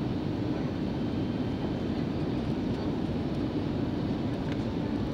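Steady cabin noise inside an Airbus A321 airliner in flight: an even low rumble of engines and airflow, heard from a window seat.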